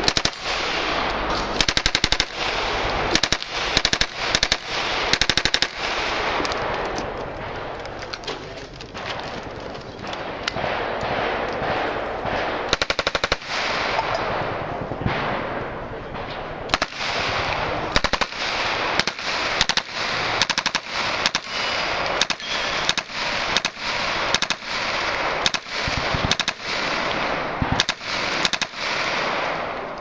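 Drum-fed submachine gun firing short full-automatic bursts one after another, roughly one or two bursts a second, each followed by a ringing tail.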